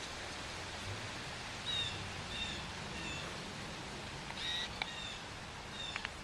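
A small bird chirping: short, slightly falling chirps, about half a dozen in a loose series starting near two seconds in, over a steady outdoor hiss.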